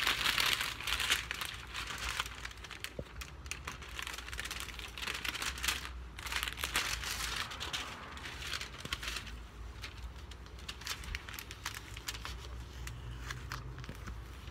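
Brown masking paper and blue painter's tape being peeled off a spray-painted surfboard by hand, crinkling and tearing in irregular crackles.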